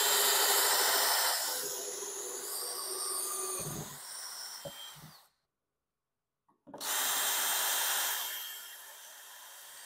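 DeWalt cordless drill spinning a stepped pocket-hole bit through a Kreg jig into plywood. It is loudest as the bit starts cutting, then eases off. It stops for about a second and a half, then drills again, loud at first and settling.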